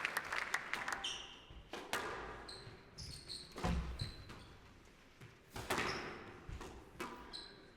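Squash rally: sharp, irregular smacks of the ball off rackets and court walls, with short high squeaks of players' shoes on the court floor between them. Applause dies away in the first second.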